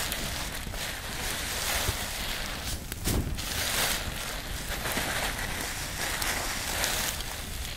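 Large pile of shredded paper burning in the open: a steady rushing flame noise that swells several times, with a few sharp crackles.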